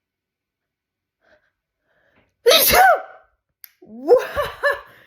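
A woman's single loud, sudden sneeze about halfway through, after a quiet pause: an induced sneeze that finally releases a stubborn tickle in her nose. It is followed by a few short voiced sounds rising and falling in pitch.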